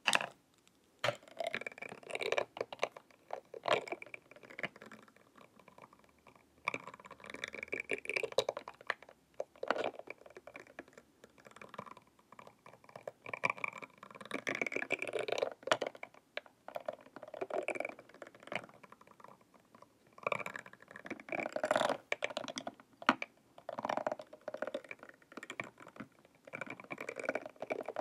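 Two ridged metal rods with fishtail ends rubbed and tapped against each other and against a hard plastic face mask, making bursts of rapid fine clicking and scraping a second or two long, with short pauses between.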